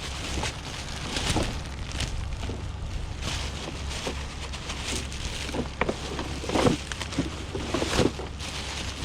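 Scrap items being handled: rustling and scattered light knocks, the firmest about a second and a half in and twice more near the end, over a low rumble of wind on the microphone.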